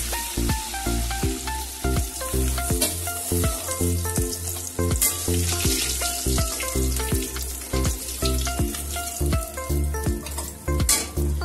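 Pieces of rohu fish sizzling as they fry in hot oil in an aluminium kadai, with a metal spatula turning them and lifting them out. Rhythmic background music plays over it.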